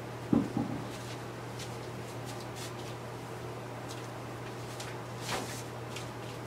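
Oven handling as a foil-covered pan of chicken is put in: two dull thumps just after the start and a lighter knock about five seconds in, over a steady low hum.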